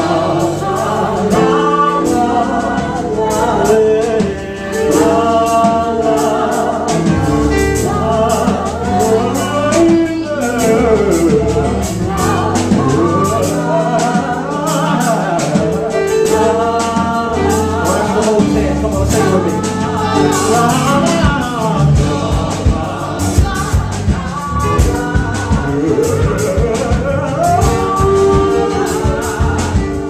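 Live gospel music: a male lead singer and backing singers over keyboard chords, with drums coming in more strongly about two-thirds of the way through.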